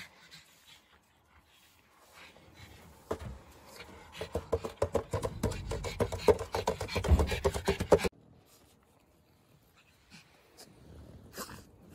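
Rapid scraping and crunching on packed snow, loudest from about four to eight seconds in and cutting off abruptly.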